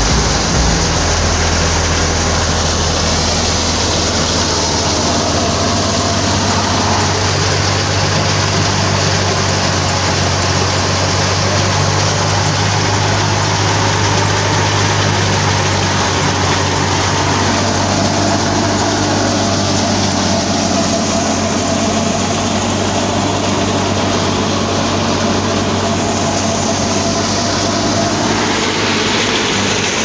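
Tractor engine running steadily under load, driving a wheat thresher through its power take-off shaft. A constant low engine hum sits under the dense, even noise of the threshing drum chewing through the fed-in wheat stalks.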